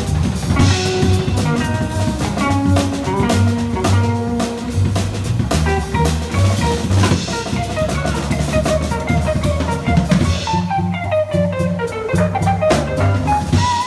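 Live jazz trio playing: upright bass, drum kit with cymbal accents every few seconds, and a hollow-body electric guitar playing single-note lines through its amp, with a quick falling run of notes about ten seconds in.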